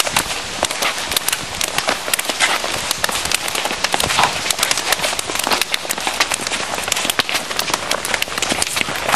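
Rapid, irregular smacks of hands and forearms striking and blocking in Wing Chun partner drills, several pairs at once, the slaps overlapping into a dense patter.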